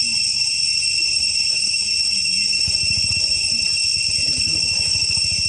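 Steady, high-pitched drone of a chorus of forest insects, holding several pitches without a break. A low, rapid fluttering rumble joins underneath about two and a half seconds in.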